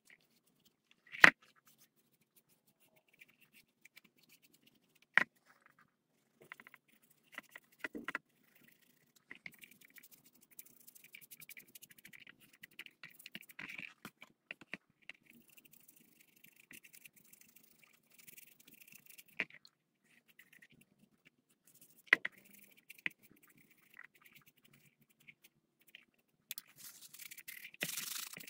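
Leather being worked by hand on a stone countertop: a few sharp knocks as pieces are set down, the first the loudest, and stretches of scratchy rubbing. The rubbing grows louder near the end as the dyed leather is wiped with a cloth.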